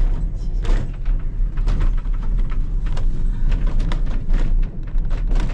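Moving narrow-gauge train car rattling and clattering over the track with a steady low rumble, with irregular knocks and clicks throughout and wind buffeting the microphone.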